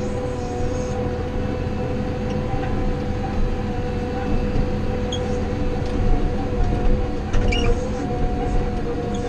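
A wheel loader's diesel engine and drivetrain running steadily under way, heard from inside the cab: a deep drone with a steady whine on top.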